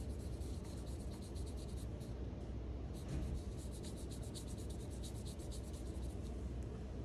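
Small watercolor paintbrush stroking across paper in quick, short strokes, several a second, over a steady low room hum.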